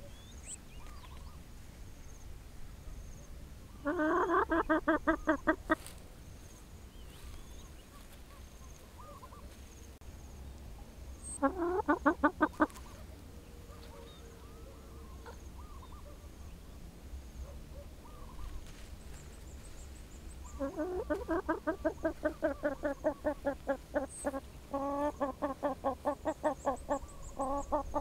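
White chicken clucking in rapid runs of repeated calls: a burst about four seconds in, a shorter one near twelve seconds, and a long run through the last seven seconds.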